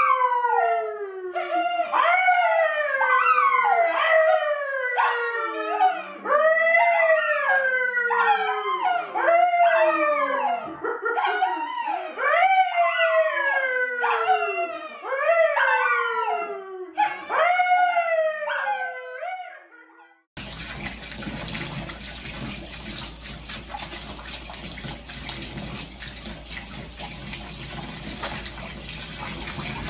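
A brown poodle howling over and over, each howl rising briefly and then falling, with a man howling along at a lower pitch. About twenty seconds in, this cuts to a steady rush of a tap running into a bathtub with a dog in the water.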